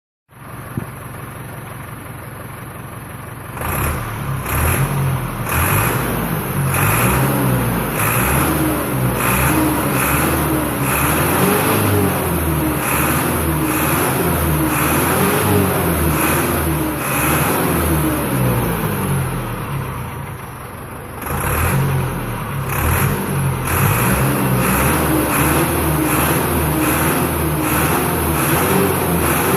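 Landini Blizzard 65 tractor's diesel engine running steadily for a few seconds, then opened up and working hard under load. Its pitch rises and falls over and over as the revs surge, with a brief drop in revs about twenty seconds in before it climbs again.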